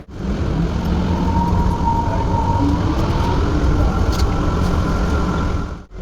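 Airport people-mover train running: a steady rumble with a faint motor whine wavering in pitch.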